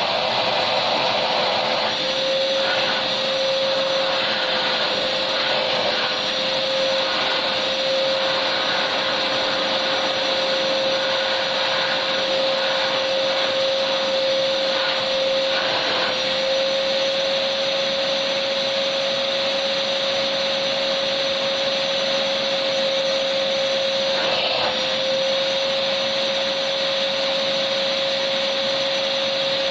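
Vacuum cleaner running steadily: a constant motor whine over an even rushing hiss of air.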